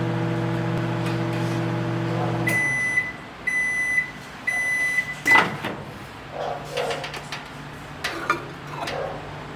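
Microwave oven running with a steady hum that stops about two and a half seconds in, followed by three high beeps about a second apart signalling the end of the cooking cycle. A loud click and a few knocks and clatters of handling follow.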